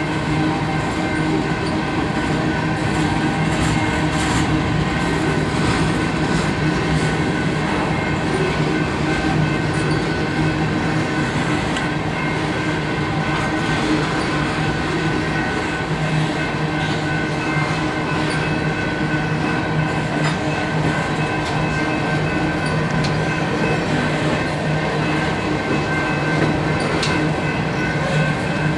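Covered hopper cars of a freight grain train rolling steadily past, steel wheels running on the rails with a continuous hum and scattered clicks.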